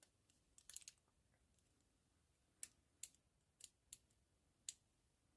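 Faint metallic clicks of lock-picking tools working inside a double-locked handcuff's lock: a quick cluster of clicks about a second in, then five single clicks spaced irregularly.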